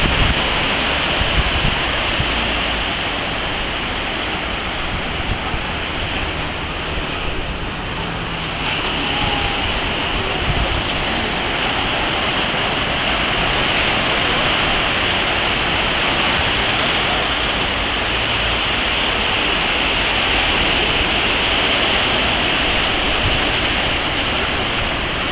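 Ocean surf breaking and washing in: a steady rush of water noise that rises and falls gently with the waves.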